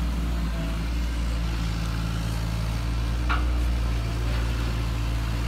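Radio-controlled Bruder toy excavator running with a steady low engine drone as it raises its dozer blade and moves off on its tracks.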